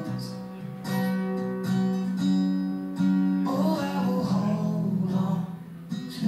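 A song playing on the radio, carried by strummed acoustic guitar.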